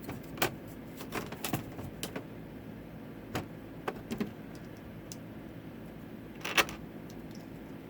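Plastic Lego pieces clicking and tapping as they are handled and pressed together, in scattered sharp clicks at irregular intervals, the loudest near the end.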